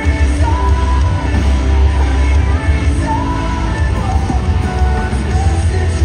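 Live rock band playing loud: electric guitars, bass and drums under a singer's vocals, with heavy low end throughout.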